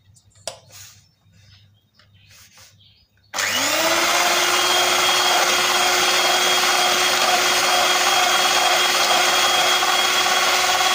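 Electric hand mixer switched on about three seconds in, its motor quickly rising to a steady whine as the beaters whisk cake batter in a stainless steel bowl. It runs steadily and cuts off abruptly near the end.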